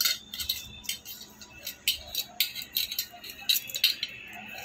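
Bangles clinking and jingling on a wrist, with a hand knocking against a steel bowl while squeezing boiled potatoes: a run of sharp, irregular clicks, several a second.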